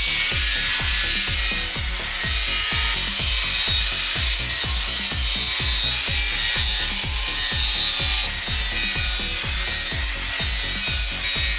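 Hand tool rasping back and forth in a quick, steady rhythm of about three strokes a second, as in filing or sawing during knife-making.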